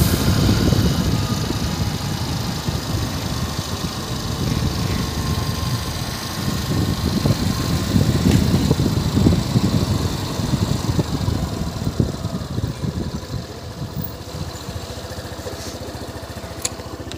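Motorbike engine running while riding, with wind buffeting the microphone; it gets quieter over the last few seconds as the bike slows.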